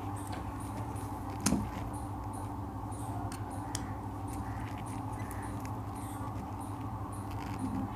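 Small metal screwdriver tip clicking and scraping against the tiny body screw of a plastic screwdriver-type line tester as the screw is tightened: a few faint sharp clicks, the clearest about one and a half seconds in, over a steady low hum.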